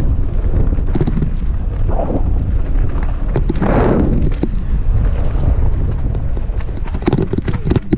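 Wind buffeting the camera microphone as it moves fast down a dirt trail, with frequent rattling clicks and knocks from the rough ground, and a louder rushing burst about halfway through.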